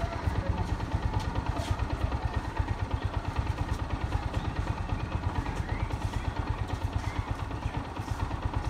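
A vehicle's engine idling, a steady low throb of rapid, even pulses, heard from inside the stopped vehicle.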